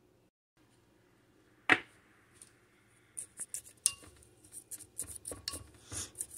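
A spatula knocking and scraping inside a glass blender jar while it stirs a crumbly date, almond and coconut mixture: one sharp knock a little under two seconds in, then a steady run of small irregular clicks and scrapes.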